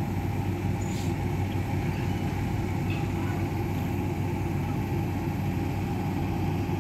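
Steady low drone of an idling engine: one constant low hum under an even low rushing noise, unchanging throughout, with a faint click about a second in.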